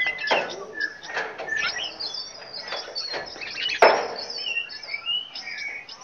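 Several small caged songbirds chirping and calling together, short overlapping notes and quick gliding whistles. There is a brief sharp noise a little before four seconds in.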